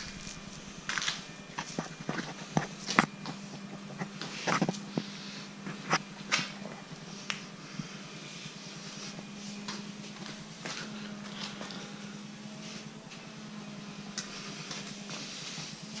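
Handling noise from a handheld camera: scattered clicks and taps, mostly in the first half, over a steady low hum.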